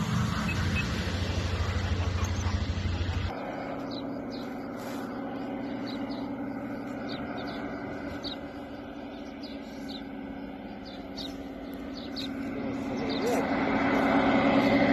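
Agricultural spray plane's propeller engine droning: a steady low hum that cuts off abruptly about three seconds in, then a fainter distant drone that grows louder near the end as the plane comes in low over the field.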